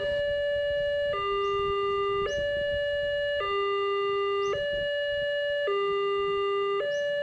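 Electronic two-tone hi-lo siren, steadily alternating between a higher and a lower note about every second, like an emergency vehicle's siren.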